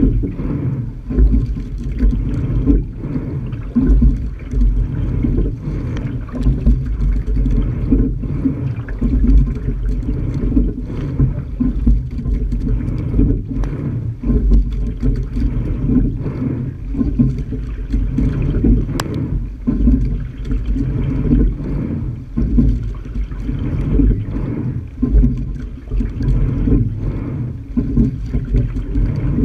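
Low, uneven rumble of wind buffeting the microphone of a camera mounted on a single rowing scull, mixed with water running along the hull as the boat is rowed.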